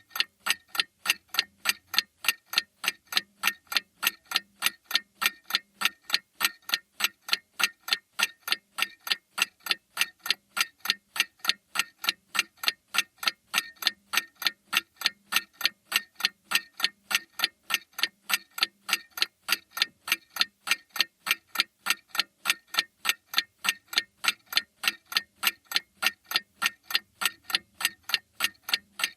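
Mantel clock ticking: sharp, evenly spaced ticks, a few a second, at a steady level.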